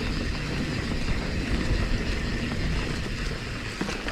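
Giant Trance full-suspension mountain bike rolling over rough dirt singletrack: a steady rumble of tyres on the trail with light rattles and clicks from the bike, and wind buffeting the camera microphone.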